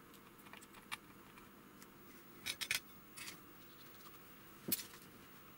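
Faint, scattered small clicks and scrapes of a soldering iron tip working on a circuit board while SMD resistors are desoldered. A quick cluster of clicks comes about two and a half seconds in, and a single sharper click near the end.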